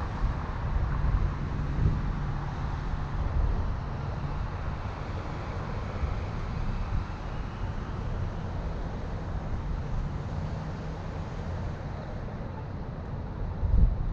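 A car driving: steady road and engine rumble with a faint engine hum, and wind on the microphone.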